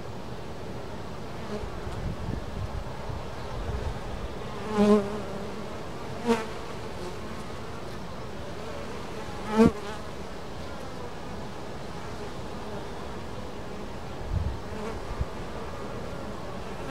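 Honey bees buzzing at a hive entrance. Three times a single bee flies close past, its buzz briefly louder and clearly pitched, about 5, 6 and 10 seconds in; a soft low thump about 14 seconds in.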